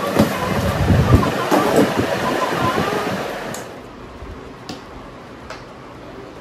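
Cardboard box of a children's play tent being handled and slid over a wooden floor: a rough scraping rustle with a few thumps for the first three to four seconds, then quieter with a few light taps.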